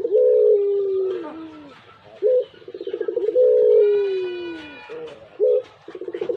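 A dove cooing its long call over and over, about once every three seconds. Each call is a short note, then a rolling, pulsing coo and a long drawn-out tone that slides down in pitch.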